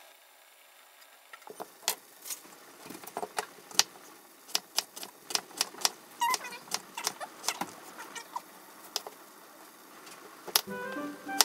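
Kitchen knife slicing daikon radish on a wooden cutting board: a run of sharp, irregular taps, about two or three a second, as each stroke cuts through and hits the board. Background music comes back in near the end.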